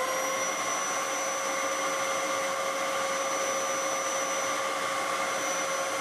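Dyson upright vacuum cleaner running at full speed: a steady motor whine over a rushing hiss.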